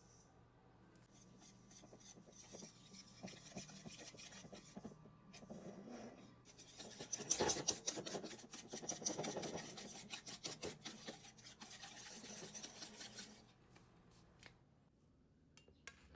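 A kitchen utensil scraping and rasping in quick repeated strokes, building up and loudest about halfway through, then dying away a couple of seconds before the end.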